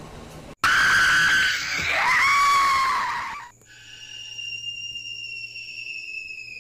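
A person screaming, loud and high, starting suddenly about half a second in and wavering in pitch for about three seconds. Then comes a steady high eerie whine over a low hum, slowly sinking in pitch.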